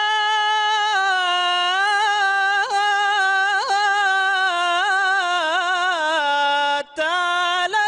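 A man's unaccompanied voice singing Arabic devotional praise (inshad) into a microphone: one long ornamented line that wavers and slides lower near the end, broken by a short breath about seven seconds in.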